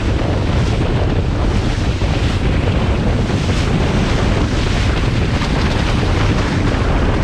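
Steady rush of wind buffeting the microphone over water hissing along the deep-V hull of a Reflex Chianti 705 running at speed through light chop.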